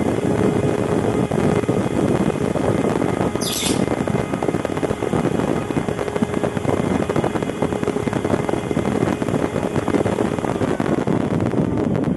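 ebm-papst 6318/19HP 48 V tube-axial server fan running steadily: a loud, even rush of air with a faint steady hum under it. A short high chirp cuts in briefly about three and a half seconds in.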